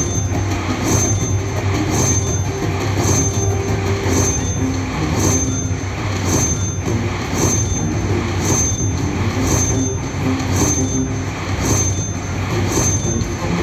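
Bao Zhu Zhao Fu slot machine's electronic sound effects: a bright chime repeating about once a second over a steady hum and the continuous din of a casino floor.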